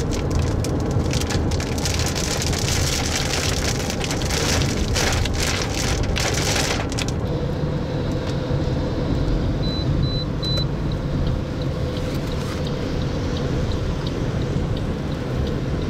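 Car driving, heard from inside the cabin: steady road rumble, with a rushing, crackly hiss over it for the first half that then falls away. Three short high beeps sound about ten seconds in, followed by faint regular ticking.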